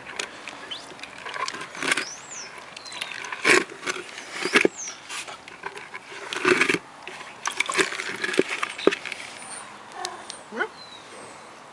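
A cat eating whitebait: irregular chewing and smacking clicks with a few louder short bursts of noise.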